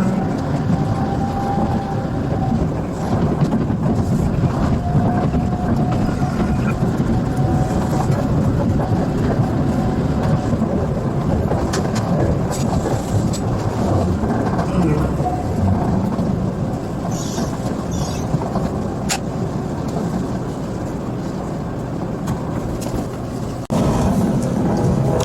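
Moving train's running noise, a steady dense rumble with occasional clicks and faint held tones, with people's voices mixed in.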